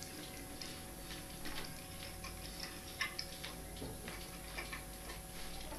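Quiet eating sounds: soft, irregular clicks of a fork and chewing, over a faint steady hum.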